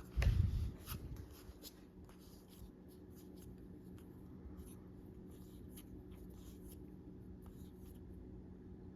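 Trading cards being handled and slid past one another as a pack is flipped through: faint scattered rustles and light clicks, with a low thump about a quarter of a second in.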